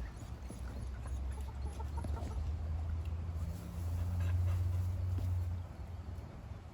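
Chickens clucking softly, with a steady low rumble underneath that grows louder about four seconds in.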